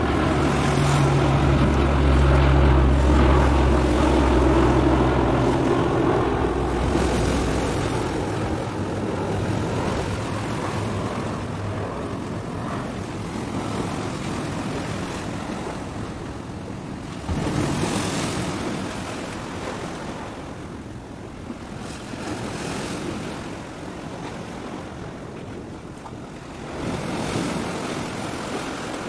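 Low, steady drone of a ship's engine that fades out after the first several seconds, under wind rushing on the microphone, with a sudden gust about two-thirds of the way in.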